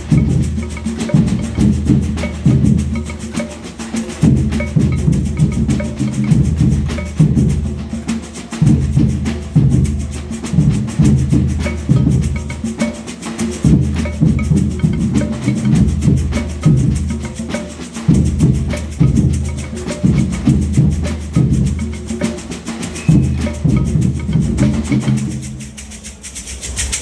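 Samba batucada drumming: surdo bass drums and snare drums playing a steady rhythm together. The playing breaks off briefly near the end.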